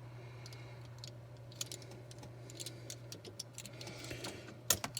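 Light, irregular clicks and taps of a 1:64 diecast model car being handled and turned over in the hands, a few sharper ones near the end, over a steady low hum.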